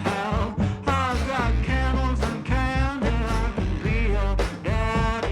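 Background music with a strong bass line.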